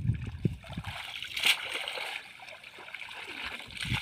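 Water splashing and sloshing as a mesh fishing net is worked through shallow muddy water at the bank, with one sharper splash about a second and a half in.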